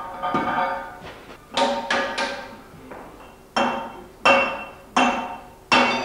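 Hammer blows on steel, about eight irregular strikes, some in quick succession, each ringing with a clear bell-like tone that dies away.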